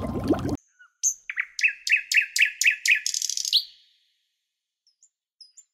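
Music breaks off abruptly, then a bird sings: a run of about six quick, repeated chirps that sweep downward, ending in a short buzzy trill.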